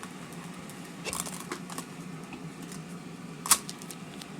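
Packing tape being pressed down onto a woofer's dust cap: scattered small crinkles and clicks, with one sharper crackle about three and a half seconds in, over a faint steady hum.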